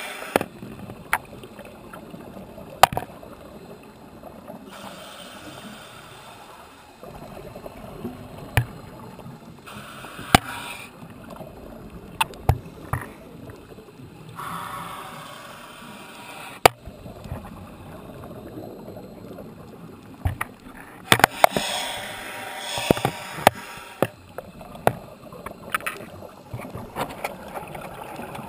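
Scuba regulator breathing underwater: a swell of bubbling exhaust every few seconds, with many sharp clicks scattered throughout.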